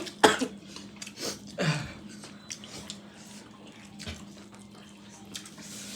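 Scattered clicks and scrapes of people eating from plates, mostly in the first two seconds, with a brief vocal sound a little under two seconds in, over a faint steady hum.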